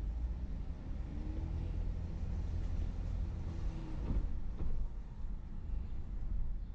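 Steady low rumble of a car driving along a city street, heard from inside the car: engine and tyre noise on the road.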